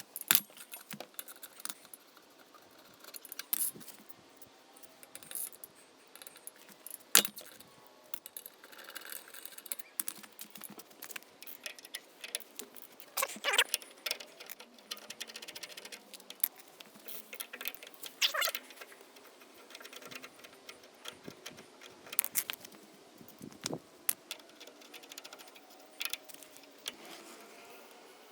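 Scattered metallic clicks and clinks of a wrench on bicycle pedals, with a few short squeaks, as the pedals are unscrewed from a BMX bike's cranks and swapped over.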